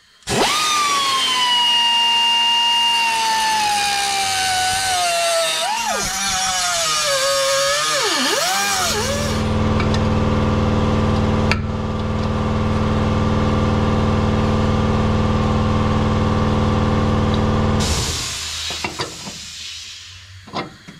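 Pneumatic cutoff wheel cutting through a Jeep Wrangler JK's steel jounce-bumper tube: a high whine with a hiss that sags in pitch as the disc bites, dipping twice as it bogs in the cut. About nine seconds in the whine gives way to a steady low machine hum lasting about nine seconds, and a short hiss follows near the end.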